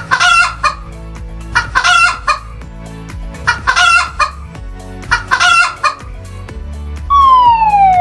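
A hen's cackling calls, four short bursts about every two seconds, over light children's background music with a steady beat. About seven seconds in, a loud falling whistle sound effect starts.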